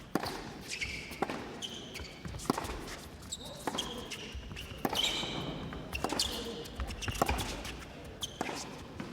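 A tennis rally: the ball is struck back and forth with a sharp racket hit about every 1.2 seconds, eight hits in all, with short high squeaks between them.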